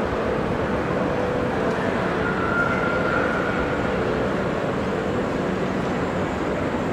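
Steady din of a busy railway-station area: a dense wash of traffic and crowd noise with faint thin held tones running through it.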